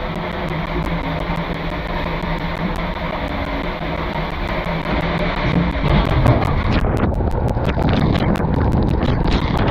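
Steady rush of water in the drop capsule at the top of an enclosed tube water slide. About six seconds in the sound gets louder and rougher as the rider drops into the tube: water rushing and a low rumble of the body sliding through the enclosed tube, close on the body-worn camera.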